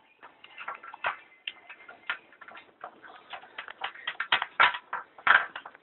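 An irregular run of sharp clicks and taps, growing denser and louder in the last couple of seconds.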